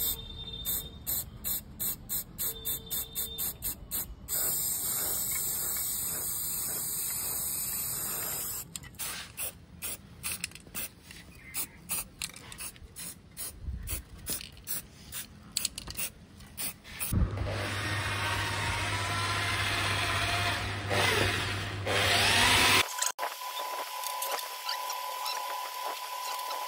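An aerosol spray-paint can is shaken so its mixing ball rattles in quick sharp clicks, about three a second at first, alternating with a long steady hiss of spraying. About two-thirds of the way through comes a louder steady rush with a low hum.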